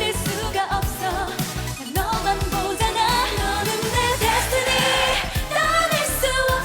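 K-pop dance song with female group vocals over a steady, driving electronic beat.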